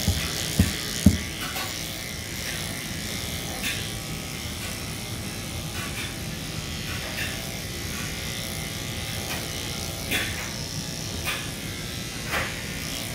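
Electric dog grooming clippers running steadily, with two sharp knocks about a second in and a few short scraping sounds later.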